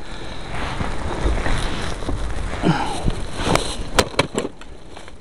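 Blizzard wind buffeting the microphone with a low rumble. A brief falling vocal sound comes about two and a half seconds in, and a few sharp clicks follow about a second later.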